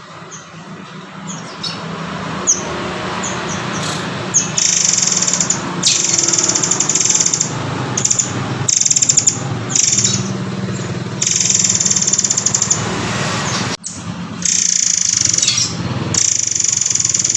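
Murai air (murai kopi) singing: a run of loud, rapid, buzzy high trills, each phrase lasting a second or two with short gaps, over a steady low hum, with a sudden short break about three-quarters of the way through.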